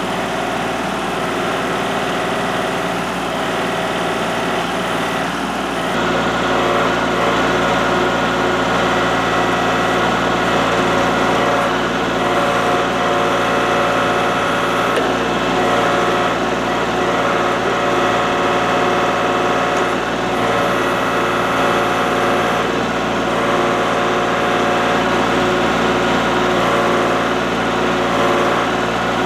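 Kubota L3301 HST tractor's three-cylinder diesel engine running steadily, stepping up to a higher engine speed about six seconds in.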